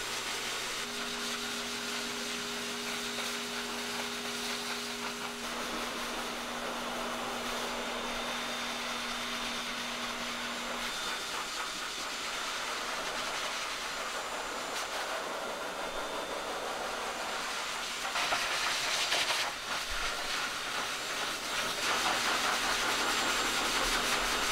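Pet grooming dryer blowing a steady rush of air through its hose nozzle onto a wet cat's coat. It gets louder about three-quarters of the way through and again near the end as the nozzle moves.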